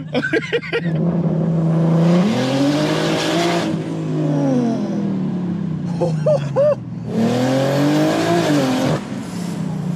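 BMW M140i's turbocharged B58 straight-six pulling hard twice: the engine note climbs and holds, then falls away, with a rushing hiss over each pull.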